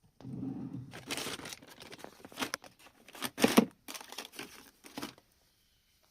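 Rustling, crinkling and scraping handling noises in a run of short, uneven bursts lasting about five seconds, loudest around the middle.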